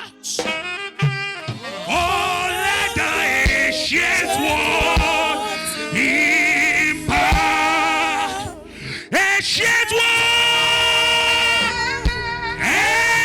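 Gospel music with a voice singing long held notes that waver in pitch.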